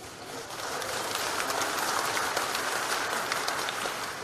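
Audience applauding: dense clapping that swells over the first second and eases off near the end.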